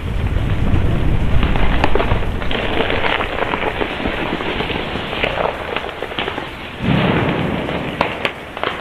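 Flames burning around a car tyre: a rushing roar full of crackles and pops, with a low rumble in the first seconds, dying down toward the end as the fire shrinks.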